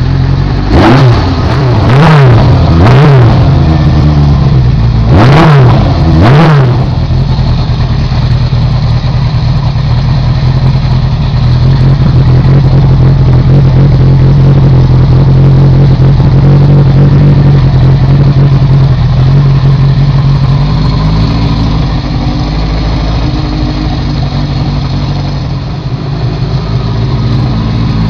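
1976 Honda CB750's air-cooled inline-four, just started, revved in five quick blips in the first several seconds, then running steadily, heard through a new MAC aftermarket exhaust.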